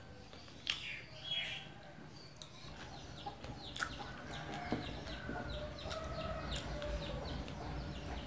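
Chickens clucking and chirping in the background, with short high falling chirps that come faster in the second half. A few sharp clicks and smacks of eating with the fingers come through on top, the loudest about a second in.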